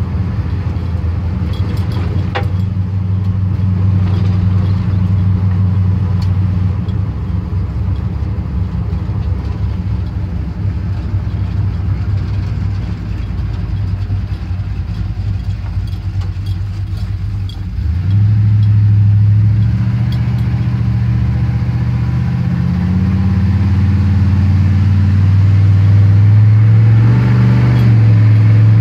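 A 1979 Chevy C10 pickup's engine heard from inside the cab while driving slowly, running steadily at first. About eighteen seconds in it gets suddenly louder as the truck accelerates, and its pitch climbs and steps up toward the end. The owner says the engine is still cold and has a stall in it.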